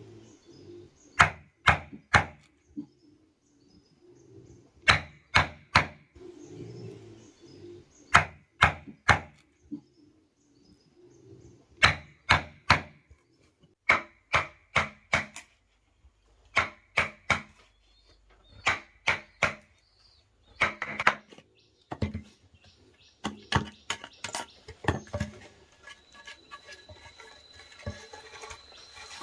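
Sharp strikes on wood, a tool knocking in quick groups of three or four every few seconds, as in hand-working timber. A dove coos faintly in the gaps, and a steady high insect trill starts near the end.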